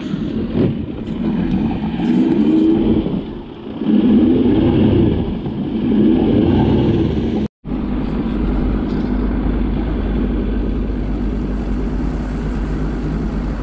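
Bass boat's outboard motor running under way, its pitch rising and falling several times as the throttle changes, with wind and water noise; after a cut about halfway through it settles into a steady low hum.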